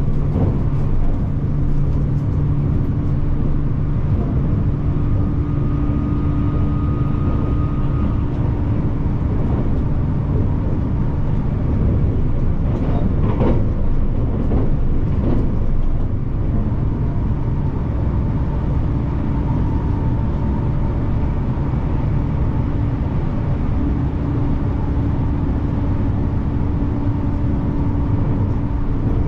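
Train running: a steady low rumble with a few faint, steady whining tones over it.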